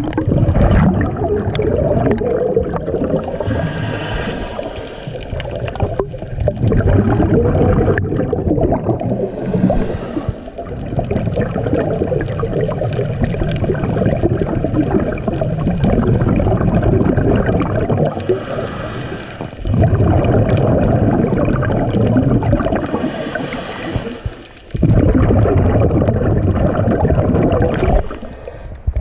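Scuba regulator breathing heard underwater: a short hiss on each inhale about every five or six seconds, then a long rumble of exhaled bubbles.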